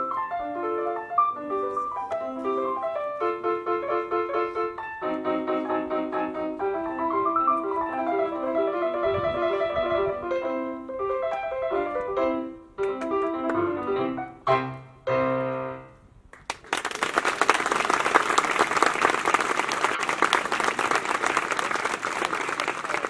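A Casio electronic keyboard playing a piece in a piano voice, with runs of notes, ending about two-thirds of the way through on a few short closing chords. An audience then breaks into applause.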